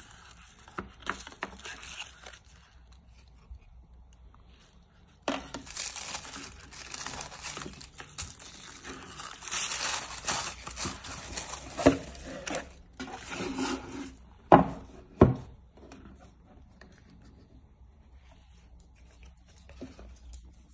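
Tissue paper crinkling and cardboard packaging sliding and scraping as a watch box is unpacked by hand, with a few sharp knocks from the box being handled around the middle.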